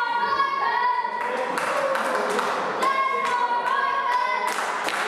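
Wrestling crowd chanting in unison with sustained, high-pitched voices, punctuated by hand claps.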